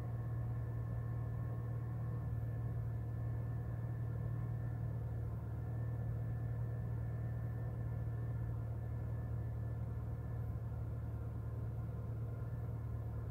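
2008 Honda Fit's four-cylinder engine idling at about 1,000 rpm with freshly fitted spark plugs, a steady low hum heard from inside the cabin. The owner judges that it sounds like it is still misfiring.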